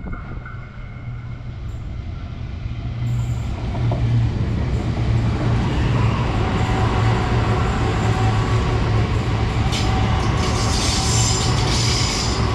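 Melbourne High Capacity Metro electric train running in along the platform, its steady low hum and rail noise growing louder over the first few seconds as it reaches the camera. High squealing and hissing join in for the last couple of seconds.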